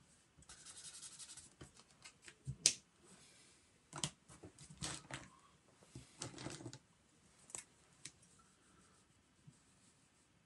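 Felt-tip marker scratching on a sketchbook page, then marker pens clicking and rattling as they are handled and picked from a heap of pens. The sound is faint, with several sharp clicks between about 2 and 8 seconds in.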